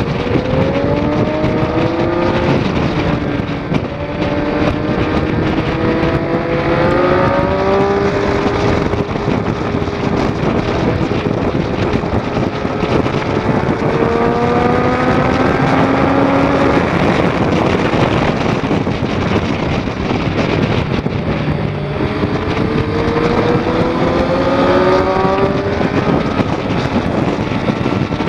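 2006 Triumph Daytona 675's three-cylinder engine under hard acceleration. Its pitch climbs several times and drops back in between.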